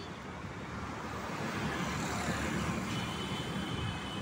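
Road traffic noise: a passing vehicle's rumble grows louder through the middle and eases off near the end.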